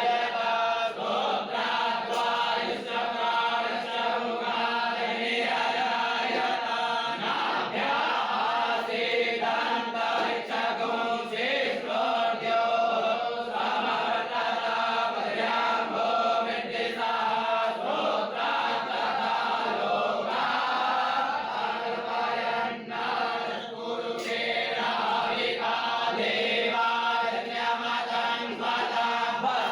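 A group of voices chanting Hindu mantras together in unison, steady and unbroken.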